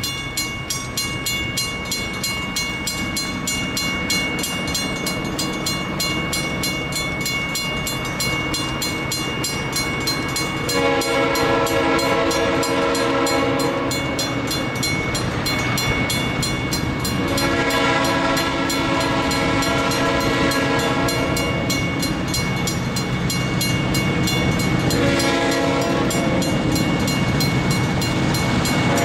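Grade-crossing bells ringing steadily. About a third of the way in, the air horn of an approaching Elgin, Joliet & Eastern SD38-2 locomotive joins them, several notes sounding together, and blows the crossing signal: two long blasts, then a short one, with the final long blast starting at the very end.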